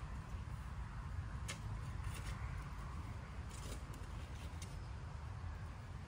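A garden tool digging into soil in a border: a few short scrapes and clicks as it strikes earth and stones, over a low steady rumble.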